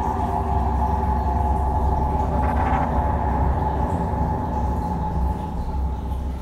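Steady low hum of an aquarium pump running, with a few steady higher tones above it.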